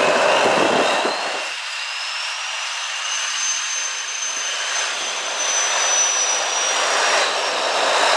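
Tatra 815 trial truck's diesel engine working hard on a steep climb, the deep running sound falling away after about a second and a half and leaving a high whistle that rises and then holds steady.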